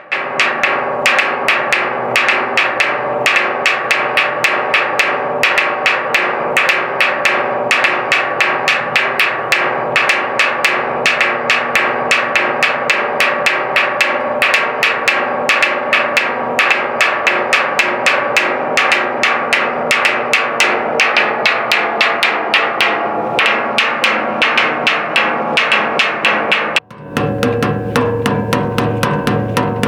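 Rapid, even percussive knocking like wood blocks or drums, over sustained tones. About 27 seconds in it breaks off for an instant and gives way to a fuller sound with a low rumble.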